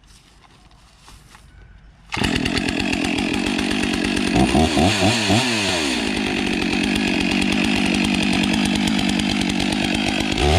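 Stihl MS 661 two-stroke chainsaw with a 36-inch bar, suddenly at full throttle about two seconds in and running hard and steadily, its pitch wavering and dipping a couple of seconds later as the chain is pushed into protective chaps over a log.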